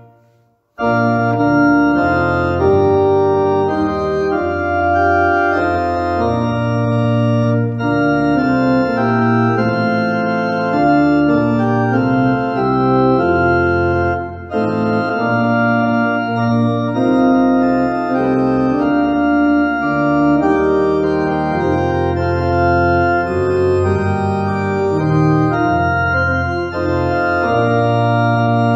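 Organ playing a verse of a hymn tune in held chords, with no singing. It comes in just under a second in after a moment's silence and breaks off briefly about halfway through.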